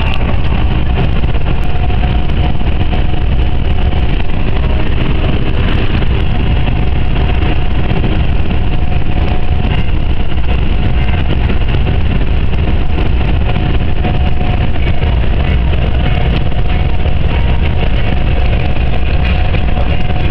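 DAF truck cruising on the motorway, heard from inside the cab: a steady low drone of the diesel engine and road noise that holds even throughout.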